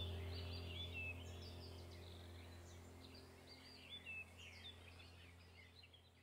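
Background ambient soundtrack of birds chirping over a low steady drone, the whole fading out gradually.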